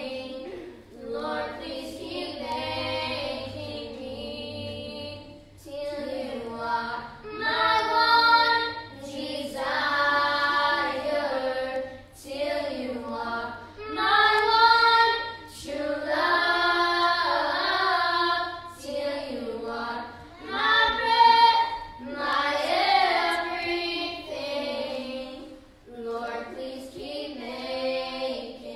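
A small group of children singing a worship song together, in sung phrases of a second or two with short breaks between.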